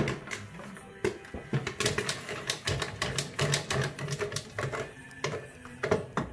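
Corn popping in a 12-volt popcorn machine's kettle: a dense, irregular crackle of sharp pops, with kernels rattling as the kettle is tipped to empty the batch.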